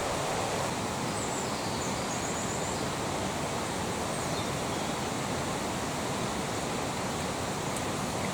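Steady rushing of a stream, an even wash of water noise.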